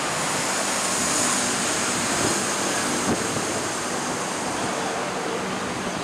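Steady wind noise rushing over the microphone.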